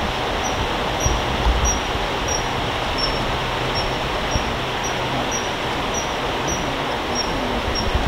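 Steady rush of stream water running over rocks, with a short high bird peep repeating about twice a second over it.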